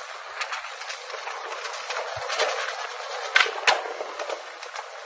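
Skateboard wheels rolling on smooth stone pavement with a steady hiss. A few sharp clicks come from the board, two of them close together a little after three seconds in.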